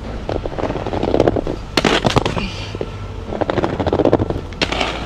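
Aggressive inline skate wheels rattling over rough concrete, with sharp clacks of the skates striking hard surfaces about two seconds in and again near the end.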